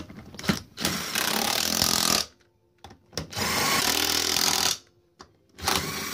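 A power tool runs in three bursts of a second or so each, spinning on and tightening the wheel's lug nuts.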